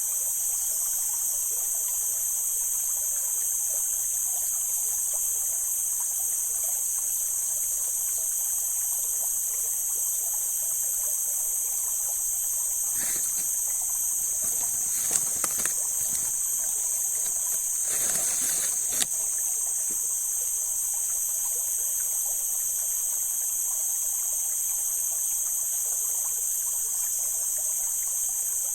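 Mountain stream water flowing and trickling steadily, under a constant high-pitched hiss. A few brief louder splashy sounds come about halfway through.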